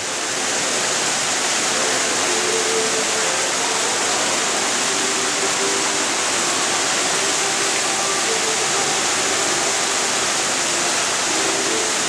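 Small rockwork waterfall splashing steadily over stones into a pool: an even, unbroken rush of falling water.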